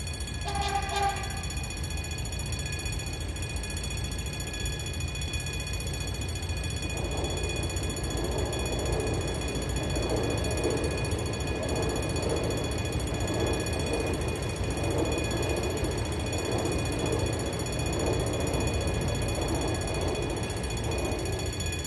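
Saxby-type level-crossing bells ringing continuously while a CSR Mitsubishi electric multiple-unit train passes, its rumble rising about seven seconds in and running until near the end. A short horn note sounds just after the start.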